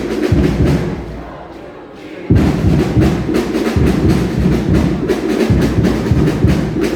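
Drumming with a fast, steady beat of drum and woodblock-like strokes. It fades about a second in and comes back in abruptly a little after two seconds.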